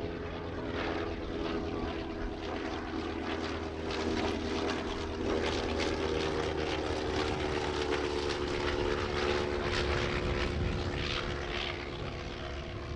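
Rotary engine of a First World War Sopwith fighter running in flight, a steady engine note whose pitch drops slightly in the second half.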